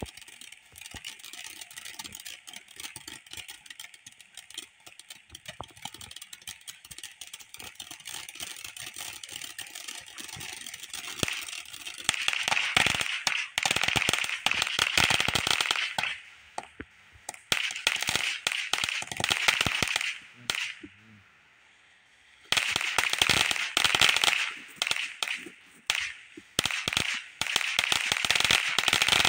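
A Hurricane firework fountain burning, with dense, rapid crackling and popping. It is lighter at first, then grows loud in surges from about eleven seconds in. There is a lull of about two seconds roughly two-thirds of the way through.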